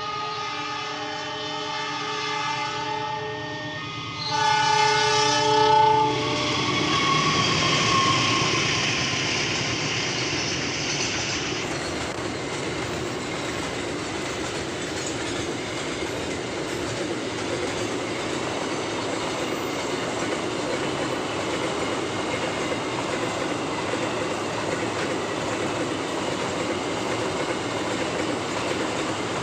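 Diesel locomotive sounding its multi-tone horn, one held blast and then a louder one about four seconds in, followed by the train passing close with a steady rumble and clatter of wheels on rail joints.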